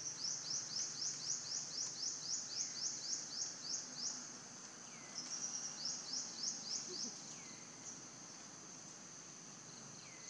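Forest ambience: a high-pitched chirping repeats about three to four times a second, stops about four seconds in, returns briefly, then gives way to a steady high-pitched hum. Faint falling whistles recur every couple of seconds underneath.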